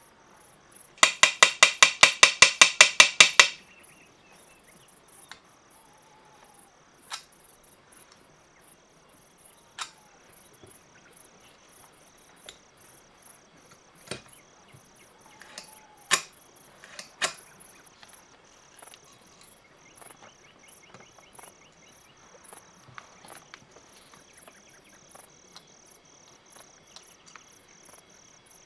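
Small metal parts of a toy tank's mechanism being worked by hand: a rapid run of about sixteen sharp clicks, some six a second, about a second in, then scattered light clicks and taps as the spring and wire linkage are handled with pliers.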